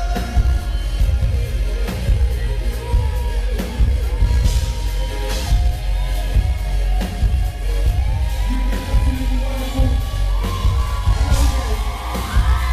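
A song performed live in concert: a singer holding long, arching notes over heavy bass and a drum beat.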